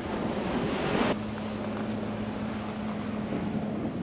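Loud rushing wind noise on the microphone for about a second, then an abrupt cut to a steady low engine hum over the wash of wind and sea.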